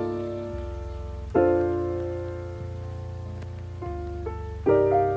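Slow instrumental background music without singing: keyboard chords struck three times and left to ring over a steady low bass.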